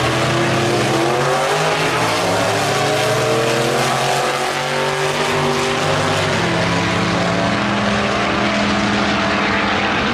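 Two drag cars, a 1956 Chevy station wagon and a Willys coupe, launching and running at full throttle down a drag strip. Their engine notes climb in pitch over the first few seconds, then shift pattern partway through.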